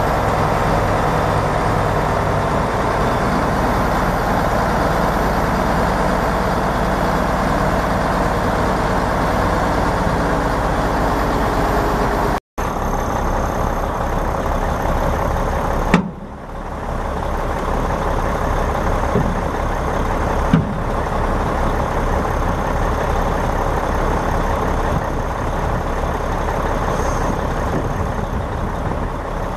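Mack six-cylinder turbo diesel engine of a 1986 Mack RD688S dump truck running steadily at idle. A brief cut about midway changes the sound, then a single sharp knock comes a few seconds later, followed by two lighter knocks.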